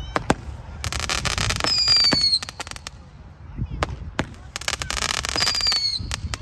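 Brothers 'Airborne Operations' firework going off: a few sharp pops, then two stretches of dense crackling, about a second in and again near the end. Each stretch carries a high whistle that drops in pitch as it fades.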